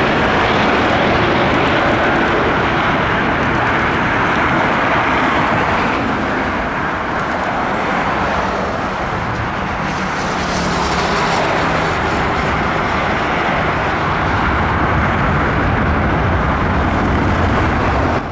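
Airbus A330-243 jet engines, Rolls-Royce Trent 772s, giving a loud, steady noise as the airliner lands. The noise dips a little midway and swells again with a deeper rumble near the end.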